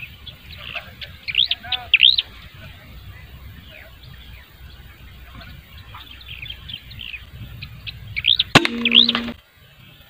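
Small birds chirping in quick arching calls, loudest about a second in and again near the end. About eight and a half seconds in comes a single sharp crack of the air rifle firing, followed by a brief hum before the sound cuts off.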